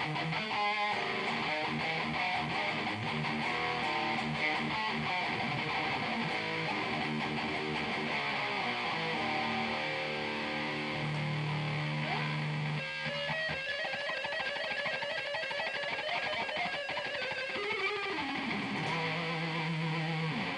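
Distorted electric guitar, a Jackson DKMG played through a Bugera 6260 tube amp head and a 2x12 cabinet, playing metal riffs with some held low notes and a downward slide near the end. Recorded on an old camera's microphone.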